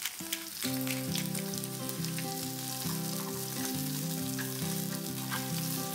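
Sliced onion and green bell pepper sizzling in hot oil in a nonstick frying pan as they are stir-fried, a dense crackle of fine pops, over soft background music.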